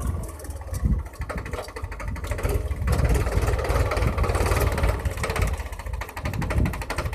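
Powertrac 439 DS tractor's diesel engine running steadily with a rapid, even pulse, its level rising and falling.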